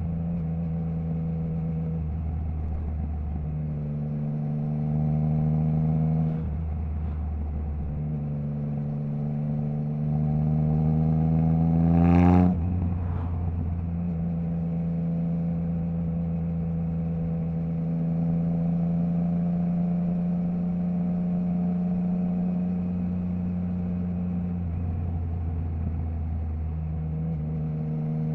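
Triumph Trident 660's inline three-cylinder engine through a Zard stainless full exhaust with the baffle removed, running at mostly steady throttle. About four seconds in the note rises briefly, and from about eight seconds it climbs steadily in pitch to a peak near twelve seconds, where it ends in a short sharp burst and drops suddenly before settling back to steady running.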